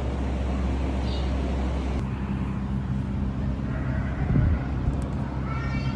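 A steady low mechanical hum. Near the end comes a brief high-pitched animal cry.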